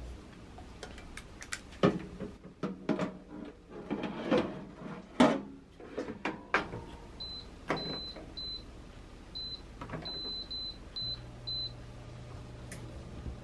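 Baking tray sliding into a Zolele countertop air fryer oven with knocks and clatter, then a run of short high beeps from its control panel as it is set to 200 °C for 17 minutes. Near the end the oven starts running with a low steady hum.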